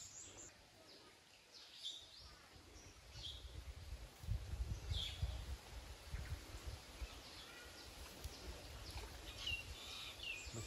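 Birds chirping now and then in short calls, over a low rumble that starts about two seconds in and is loudest around the middle.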